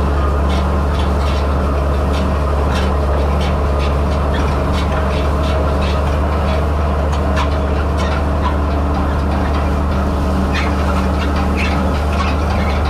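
A Farmall 806 tractor's six-cylinder diesel engine runs steadily under load as it pulls a New Idea side-delivery bar rake through hay. Irregular light metallic clicks and rattles from the rake's reel and teeth come through over the engine hum.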